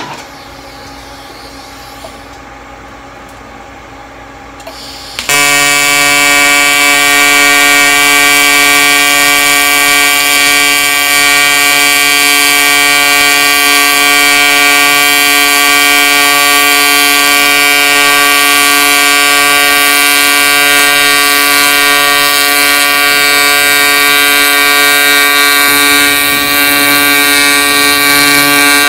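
An AC TIG welding arc on aluminum diamond plate strikes about five seconds in, then buzzes loudly and steadily as the fillet around a pipe coupling is welded out.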